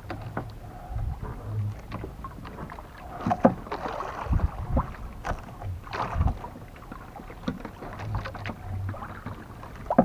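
Small outrigger fishing boat on open water, with rumbling wind on the microphone and irregular knocks and rustles as a fisherman hauls and works a handline by hand.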